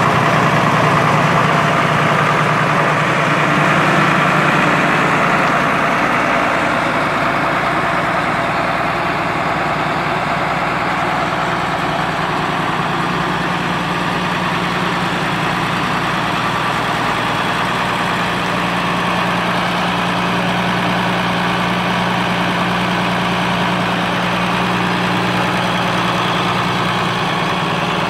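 1970 International Harvester 1456 tractor's turbocharged six-cylinder diesel engine idling steadily.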